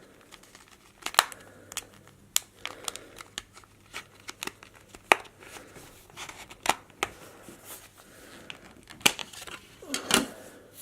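Plastic phone case for an extended battery being prised open by hand: a string of irregular sharp clicks, snaps and short scrapes of plastic.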